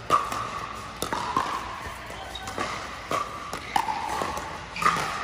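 Pickleball rally: sharp pops of paddles striking the plastic ball, about seven hits at irregular intervals, each with a short ring that hangs in the hall.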